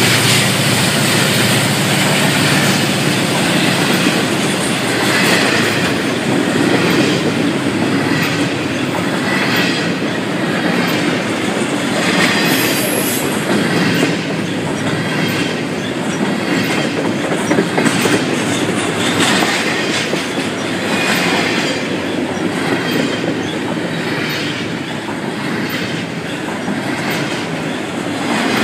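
CSX double-stack intermodal freight train passing close at speed: steel wheels rolling over the rail with a steady, loud noise and a regular clack about once a second as the cars go by.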